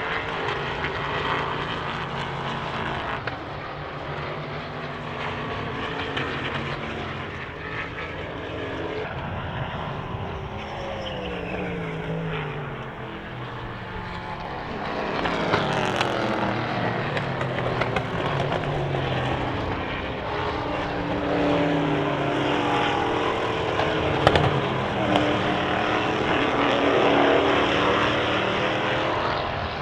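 Endurance racing cars running past at speed, several engines overlapping, their pitch sweeping down and up as they pass and shift. A sharp pop stands out about 24 seconds in.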